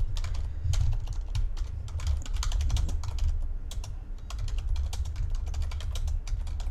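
Typing on a computer keyboard: fast, irregular keystroke clicks, with a brief lull about four seconds in.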